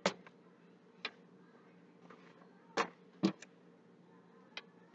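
A few light knocks and clicks of things being handled and set down on a kitchen counter, spaced irregularly, over a faint steady hum.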